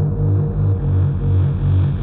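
Bass-heavy electronic dance music from a DJ set: a deep bass line pulsing about three times a second, with little high end.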